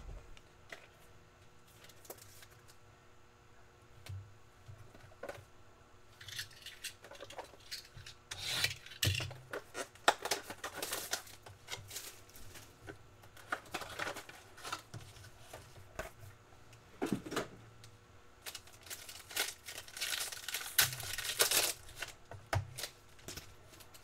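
Cardboard trading-card box and pack being handled and opened by hand: rubbing and rustling of cardboard and wrapper, with tearing and scattered clicks. It is fairly quiet for the first few seconds, then comes in irregular bursts.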